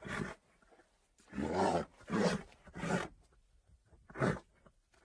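Pachycephalosaurus creature sound effect: a run of about five short animal calls with gaps between them, the longest and loudest about a second and a half in, the others brief.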